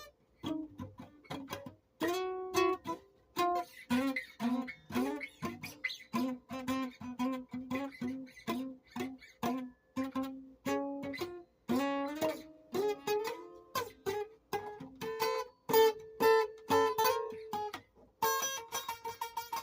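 A plucked string instrument playing a melody of single picked notes, each struck sharply and dying away. Through the middle it repeats one note several times a second.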